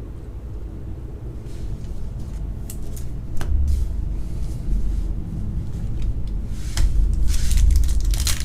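Trading cards and foil booster-pack wrappers handled on a table: a low handling rumble with a few light clicks, then louder crinkling of foil near the end.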